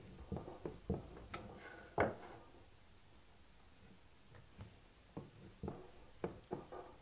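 Nickel fret wire being pressed into an ebony fretboard with a fret caul in a drill press: scattered light clicks and knocks, one louder knock about two seconds in, a pause, then several more clicks near the end.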